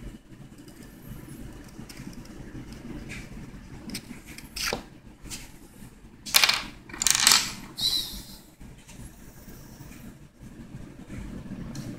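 Rustling and scraping against paper, with a few sudden rustles, the loudest in a cluster a little past the middle, over a steady low hum.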